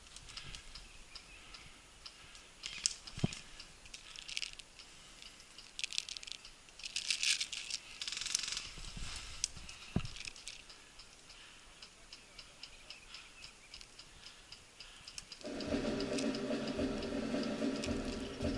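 Scattered crackling and rustling of dry grass, twigs and brush as someone moves through scrub on foot. Background music comes in about three-quarters of the way through.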